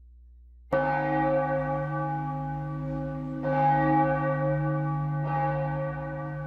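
A church bell tolling three times, each stroke ringing on over the last; the ringing cuts off suddenly near the end.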